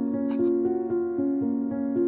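Background music: soft held notes that change every half second or so.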